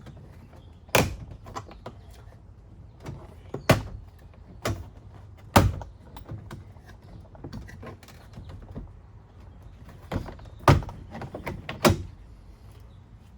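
A plastic interior door trim piece on a Chevy Express van being pried loose: a series of sharp cracks and knocks, about six loud ones with smaller clicks between, as its push-in trim clips pop out.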